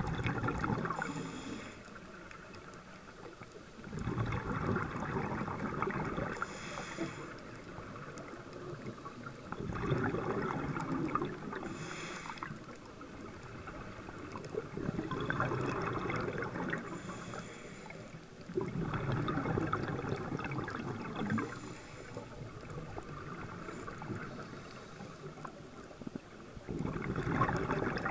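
A scuba diver breathing through a regulator underwater: a rush of bubbling, gurgling noise about every five seconds, each breath lasting two to three seconds, with quieter gaps between.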